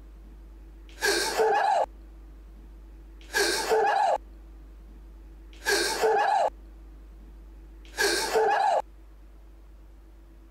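A short, breathy gasp-like sound, the same recording played four times in a row, about once every two and a third seconds, each under a second long.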